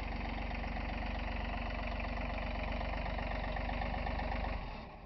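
Small John Deere front-loader tractor's engine running steadily while holding a loaded front loader, then shutting off near the end.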